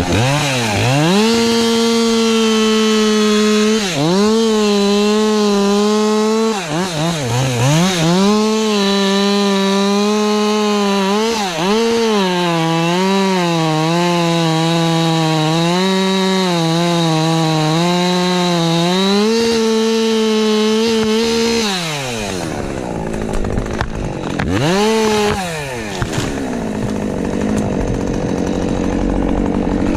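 Husqvarna 550 XP Mark II single-cylinder two-stroke chainsaw revved to full throttle and cutting spruce, its engine note sagging and recovering again and again as the chain bites. About two-thirds of the way through the throttle is released and the saw drops toward idle, with one short rev a few seconds later.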